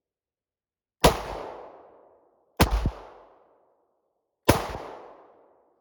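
Three shots from a Charter Arms Pug .357 Magnum snub-nose revolver firing .38 Special round-nose reloads double action, spaced about a second and a half to two seconds apart. Each shot trails off over about a second.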